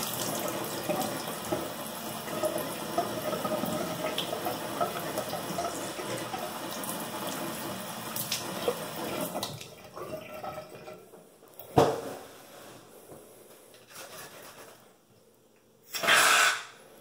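Bathroom sink tap running steadily as water is splashed onto the face, dying away about ten seconds in. A single sharp knock follows, then near the end a hiss of about a second as shaving cream is dispensed from an aerosol can.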